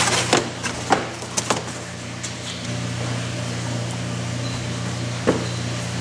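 Hard plastic rear side trim panel of a Honda Odyssey knocking and clicking against the body as it is fitted back into place. There is a cluster of sharp knocks in the first second and a half and one more about five seconds in, over a steady low hum.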